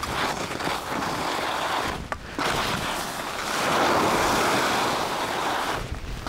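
Skis sliding and scraping over snow with wind rushing over the microphone at speed. The noise drops out briefly about two seconds in, then picks up again.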